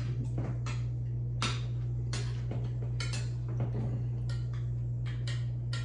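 Spoons clinking and scraping against bowls as people eat: a dozen or so short clicks at irregular spacing, over a steady low hum.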